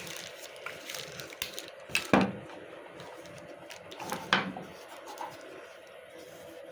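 Handling noise from robot-vacuum parts and packaging: light plastic clicks and rustles, with two louder knocks about two seconds in and again about four seconds in, over a faint steady hum.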